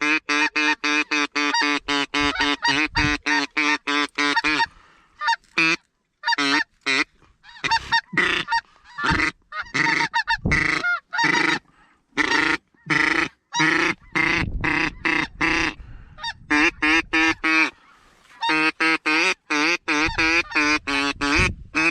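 Geese honking over and over in rapid, overlapping series, with brief breaks about six, twelve and eighteen seconds in.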